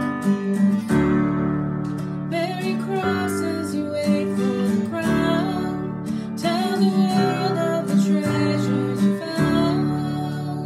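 Acoustic guitar strummed as accompaniment to a woman singing a slow worship song melody. The singing comes in about two seconds in.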